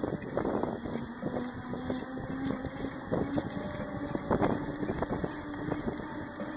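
Wind rushing over a bicycle-mounted camera's microphone while riding, with a steady rolling hum and several short knocks and rattles from bumps, the loudest about four and a half seconds in.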